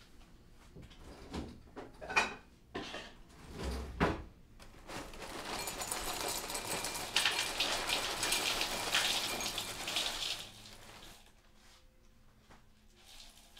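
Dishes and utensils knocking a few times, then a steady hiss with fine crackle for about five seconds, which stops near the end.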